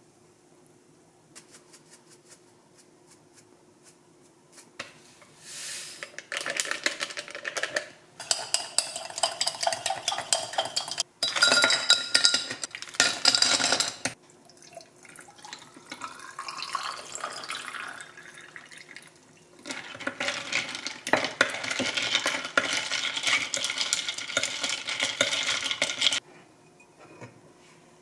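Iced tea being made in a tall drinking glass: ice cubes clinking against the glass, water poured over the ice, then a long metal spoon stirring, rattling the ice against the glass for several seconds. The loudest clinks come about halfway through, and the stirring rattle near the end.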